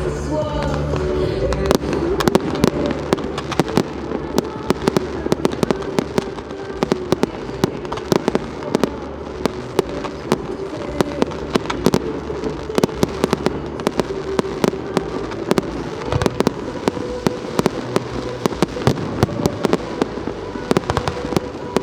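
Fireworks display: a rapid string of sharp bangs and crackling reports, growing dense about two seconds in and running on irregularly, several a second.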